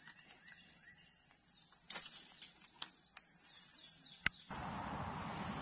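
Faint birds chirping, with small rustles and clicks and one sharp click about four seconds in. Just after that a steady rushing noise sets in suddenly and stays.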